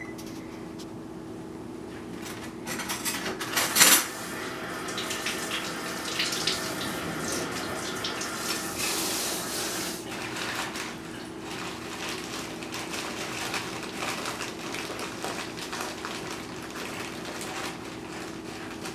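Water running from a kitchen faucet into a sink, with a sharp knock about four seconds in, over a steady low hum.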